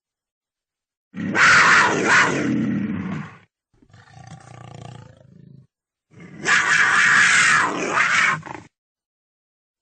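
Cougar (mountain lion) calling three times in harsh, noisy bursts; the middle call is quieter than the two loud ones on either side, with short silences between.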